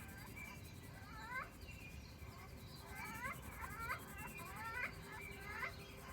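A bird chirping: a couple of short chirps about a second in, then a run of quick, swooping chirps from about three seconds in to near the end.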